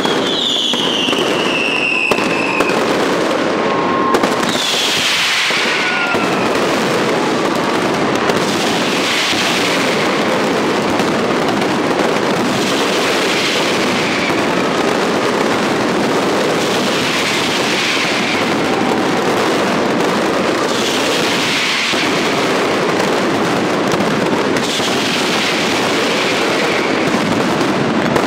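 Fireworks display going off close by: continuous dense crackling and popping of bursting shells. A whistle falls in pitch in the first two seconds, and a falling hiss comes back about every four seconds.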